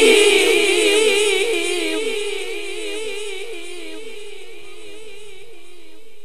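A male Quran reciter's voice ends a phrase on a long wavering note. It trails off through a heavy echo that fades away over about four seconds.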